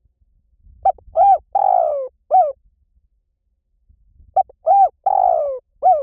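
Spotted dove cooing in two matching four-note phrases. Each phrase is a short note, a rising-and-falling note, a longer note that slides down, and a short closing note. The second phrase begins about four seconds in.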